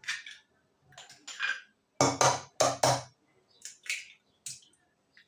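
Eggs being cracked on the rim of a bowl and broken open: a string of short knocks and shell cracks, loudest about two to three seconds in.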